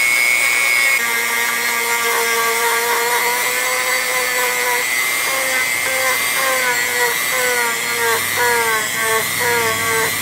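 A power tool's motor whining steadily. After about a second its pitch begins to sag and recover again and again, as when the work is pressed into it.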